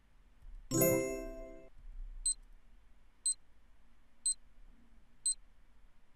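Quiz countdown-timer sound effects: a bright chime rings about a second in and fades over about a second as time runs out on a question, then short high beeps tick once a second, four in all, as the next countdown runs.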